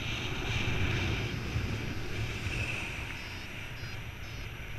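Wind noise from airflow buffeting the microphone of a camera on a soaring paraglider pilot: a steady low rumble with a rushing hiss that is stronger in the first couple of seconds.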